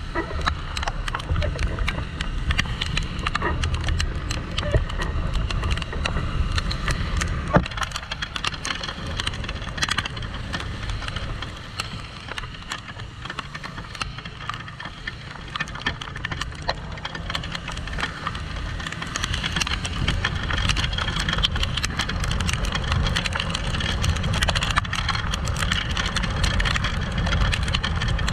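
Heavy rain pattering on a motorcycle-mounted GoPro's housing, a dense run of sharp drop ticks over the steady low rumble of the moving motorcycle.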